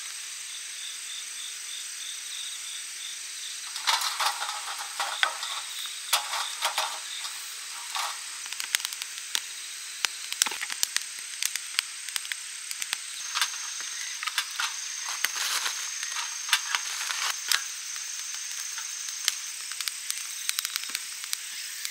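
Kindling sticks crackling and popping as they catch fire in a small metal fire stand. The sharp, irregular pops start about four seconds in, over a steady high hiss.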